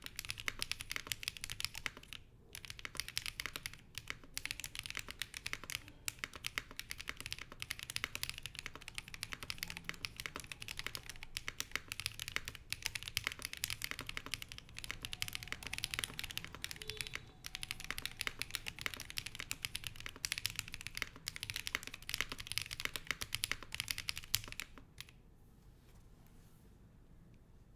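Fast, continuous typing on a Nuxros RE65 65% mechanical keyboard with an aluminium plate, lubed and filmed KTT Strawberry linear switches and Hammerworks CRP R3 keycaps. The clicks pause briefly about two seconds in and stop a few seconds before the end.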